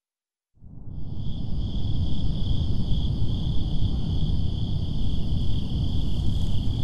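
Night ambience that fades in about half a second in: crickets chirring steadily at a high pitch over a low, steady rumble.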